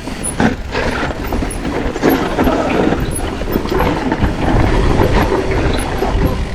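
A full-suspension mountain bike riding down a dirt trail: tyres running over the ground with the frame and chain rattling and knocking over bumps, under a heavy low rumble of wind on the GoPro microphone.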